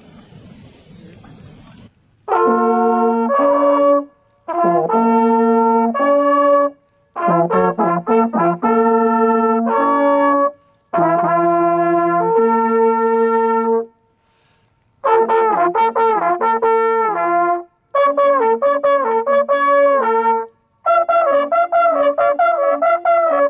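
A small coiled brass hunting horn blowing a series of calls to close the hunt: seven phrases of stepped natural notes, each a few seconds long with short breaks between, starting about two seconds in.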